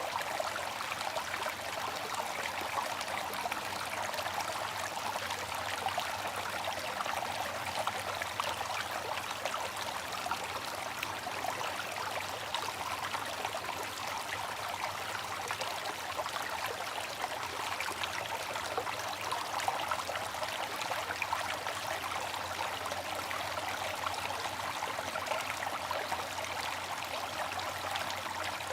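Bamboo water fountain: water running and trickling steadily, an even hiss with little low rumble and no knocks.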